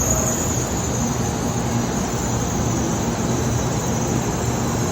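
N700A Shinkansen train rolling into the station platform: a steady rumble and rushing noise of the train running past.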